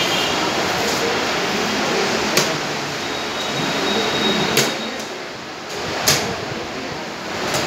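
Steady room noise in a busy chess tournament hall, with a few sharp clicks scattered through it from play at the boards as pieces are set down and clocks pressed.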